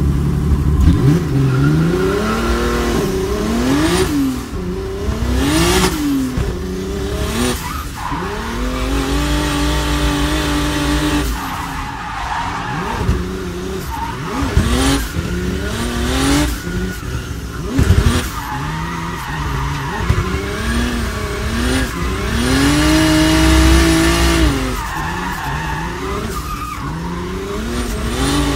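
650 hp turbocharged BMW E46 M3 heard from inside its stripped cabin while drifting: the engine revs up and down over and over between throttle stabs, over a steady tyre squeal and skid from the smoking rear tyres, with a few sharp bangs.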